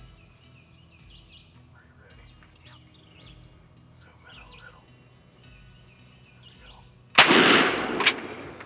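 Songbirds chirping faintly, then about seven seconds in a single shotgun blast from a 20-gauge Mossberg Bantam firing a tungsten turkey load. The blast dies away over about a second, with a brief sharp click shortly after it.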